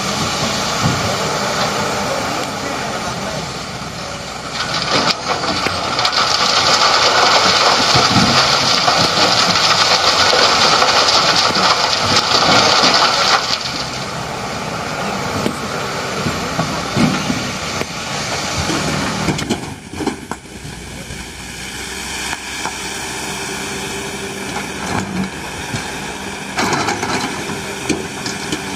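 Diesel excavator and dump truck running while sandstone is loaded, with scattered knocks. From about five to thirteen seconds in the sound grows louder and harsher, then drops back to a steadier running sound.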